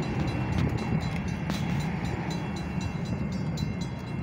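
Metra commuter train approaching: a low, steady rumble, with a quick, regular ticking over it, about three or four ticks a second.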